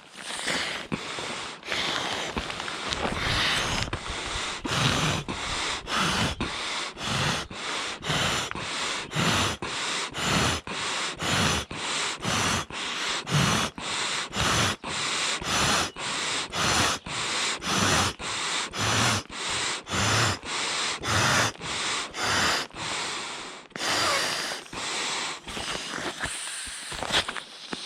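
A person inflating a sleeping pad by mouth: repeated quick breaths in and hard blows into the valve, a little more than one a second, loosening into slower, weaker breaths near the end.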